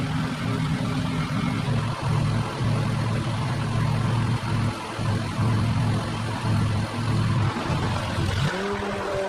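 Pressure washer running: a steady low motor hum under the hiss of the water spray, dipping briefly a couple of times.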